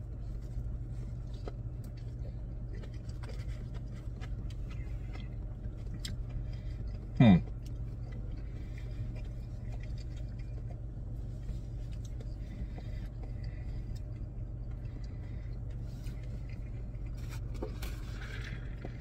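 Steady low hum of a car running, heard from inside the cabin, under faint chewing and mouth clicks from a man eating a hot dog. About seven seconds in, he gives a short hummed 'mm' that rises in pitch.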